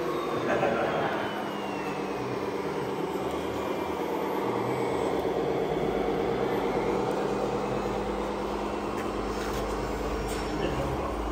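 Radio-controlled model trucks and construction machines running: a steady mechanical whine of motors and gears with a low rumble. A higher tone glides down in pitch over the first few seconds.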